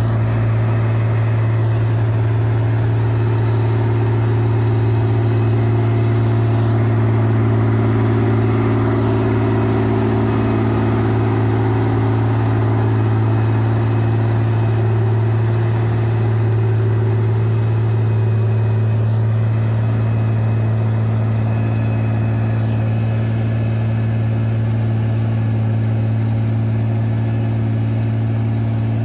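Ford tractor engine running at a steady, constant speed with a deep, even drone, fitted with tracks and working a rotary tiller through flooded paddy mud.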